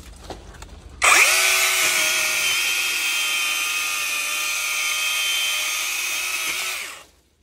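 Vanpore cordless mini chainsaw, a battery-electric saw, spinning up suddenly about a second in and running with a steady high whine while trimming palm fronds, then winding down near the end.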